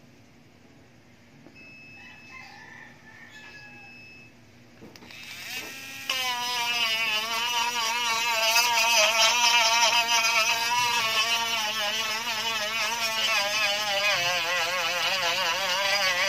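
Cordless rotary tool with an abrasive drum spinning up about five seconds in, then whining at high speed while it grinds away the frayed carbon fibre overhang on the panel's edge. Its pitch wavers up and down as the drum bites into the edge.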